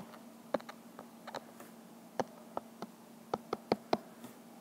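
Stylus tapping and clicking on an iPad's glass screen while writing by hand: irregular sharp ticks, a couple each second, over a faint steady hum.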